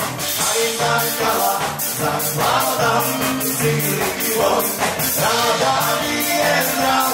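Upbeat dance music from a band, with a steady drum beat under a melody line.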